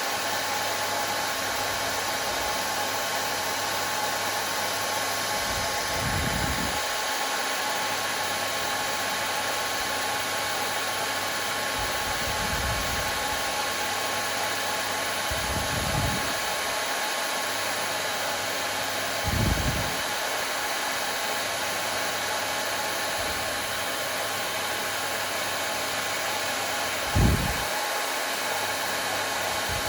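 Hair dryer running steadily: an even rushing hiss with a constant motor whine. A few brief low thuds come through it at intervals.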